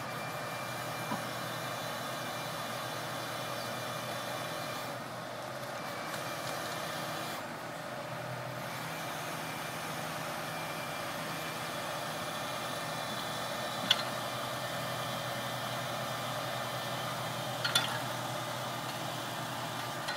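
Boom truck's engine running steadily, driving the crane's hydraulics as a pallet of cedar decking is lowered to the ground. Two short sharp clinks, one about two-thirds of the way in and another near the end.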